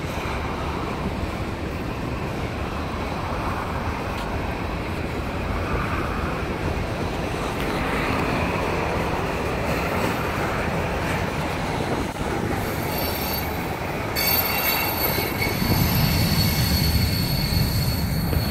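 Freight train of covered hopper cars rolling past with a steady rumble of wheels on rail. About two-thirds of the way in, a high-pitched wheel squeal sets in and keeps going, and the overall sound grows louder near the end.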